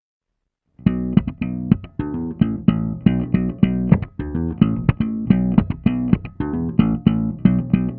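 Rock song intro: after a short silence, a plucked guitar and bass riff of quick picked notes starts about a second in and repeats in an even rhythm.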